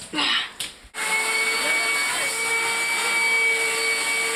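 A vacuum machine switches on about a second in and runs steadily with a high motor whine, used to suck up water from a flooded floor.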